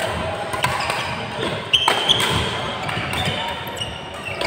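Badminton rally: sharp racket strikes on the shuttlecock, among footfalls on the court floor and a brief shoe squeak about two seconds in.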